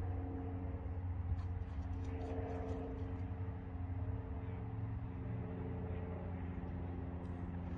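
A steady low mechanical hum, like a distant engine, with a few faint ticks.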